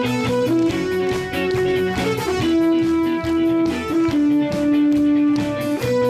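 Live rock band playing an instrumental passage with no vocals: electric guitars, bass guitar, keytar and drum kit, with a melody of long held notes over a steady drum beat.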